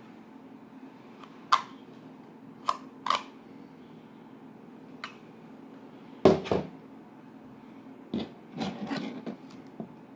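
Scattered short clicks and knocks of small objects being handled, the loudest a double knock a little past the middle, over a steady low hum.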